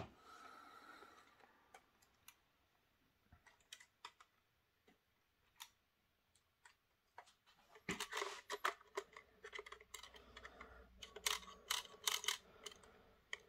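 Faint clicks and plastic rustling from handling a model railway coach and its clear plastic packaging. The clicks are scattered at first and become a dense run of clicking and rustling from about eight seconds in.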